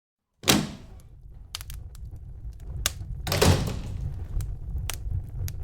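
Two heavy thuds from a wooden cottage door, about half a second in and again about three and a half seconds in, over the steady crackle and scattered pops of a fireplace.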